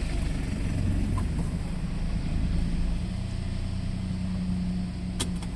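Vehicle engine running with a low rumble and a steady low hum, and a single sharp click about five seconds in.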